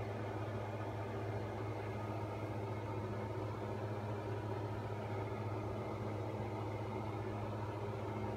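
A steady low mechanical hum with a buzzing edge, like a small motor running without change.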